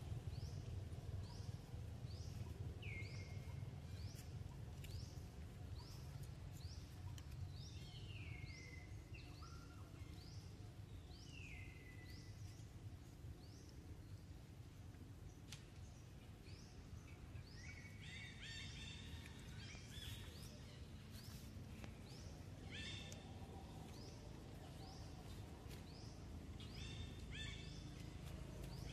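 Birds calling: a short, high, falling note repeated regularly about every two-thirds of a second, joined by a few longer falling calls and, in the second half, clusters of quick chirps. Underneath is a low outdoor rumble.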